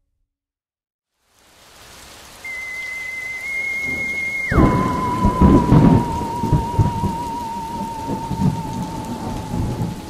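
Storm sound effects fade in after a moment of silence: steady rain, then heavy rolling thunder from about four and a half seconds in. An eerie whistling tone starts about two seconds in, swoops down a little before the thunder, and holds a wavering note to the end.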